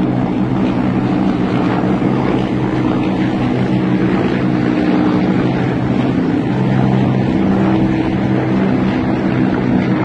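Formation of Russian military helicopters flying overhead, their rotors and turbine engines making a steady, loud drone of low tones.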